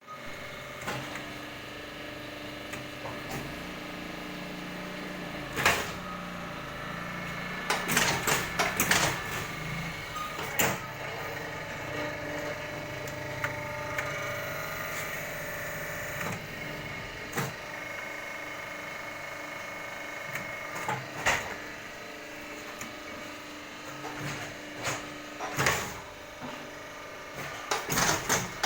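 Automatic water-gallon cap moulding machine running: a steady mechanical hum with a few held whining tones, and sharp clacks now and then, with a quick burst of them about eight seconds in.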